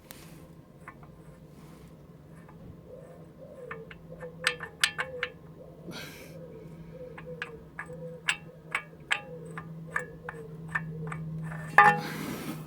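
VW T4 2.5 TDI five-cylinder diesel engine running with a steady hum and sharp, uneven knocks, about two a second. The knock comes from a sloppy timing pulley on the crankshaft. A loud burst of noise comes near the end.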